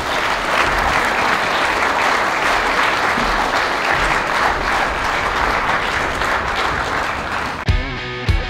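Audience applauding, a dense, steady clapping. Near the end the applause cuts off and music begins.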